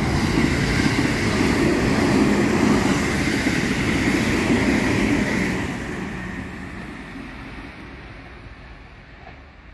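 JR Kyushu 783 series electric express train passing close by, loud for about five seconds, then fading steadily as it draws away.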